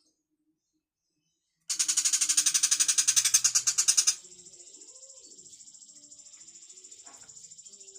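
Tiger shrike (cendet macan) calling: a loud, harsh, rapid rattling chatter starting nearly two seconds in and lasting about two and a half seconds, then breaking into a quieter, steady, high buzzing trill of fast pulses.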